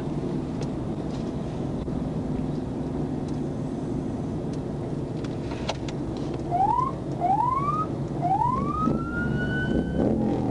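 Police car siren giving short rising whoops over the patrol car's steady road and engine noise: two quick chirps from about six and a half seconds in, then a longer one that sweeps up and holds for nearly two seconds, and another starting near the end. The siren is signalling the motorcyclist ahead to pull over.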